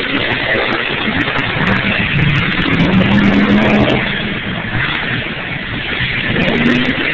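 Monster truck engine running hard under throttle, easing off about four seconds in, then revving up again near the end.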